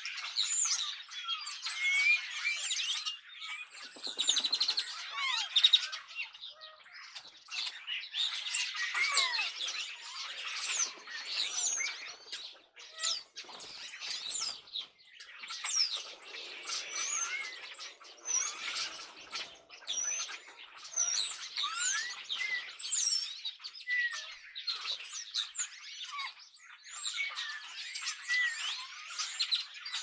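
A flock of European starlings chattering, a dense, unbroken mix of overlapping chirps, clicks and rising and falling whistles.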